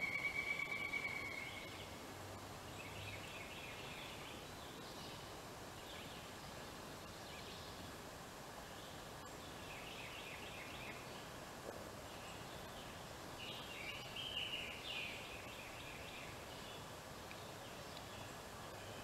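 Wild turkey calling: several short, rapid rattling series of calls spaced through, the loudest about two-thirds in. A clear whistled note sounds at the very start, over a faint outdoor background.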